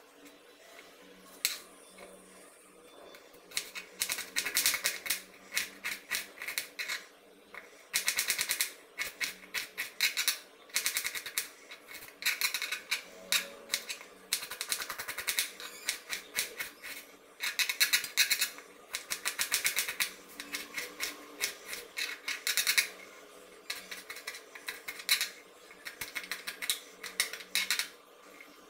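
Kitchen knife chopping onion and green chillies on a plastic cutting board: runs of rapid, even knocks broken by short pauses.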